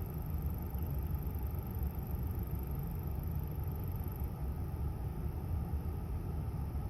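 Cabin heater blower fan of a 2021 Kia Cerato running steadily in the car's cabin, with the chirping 'cricket' noise from the heater blower motor that the owner finds irritating and the dealer says is not a defect. A faint thin high whine stops about four seconds in.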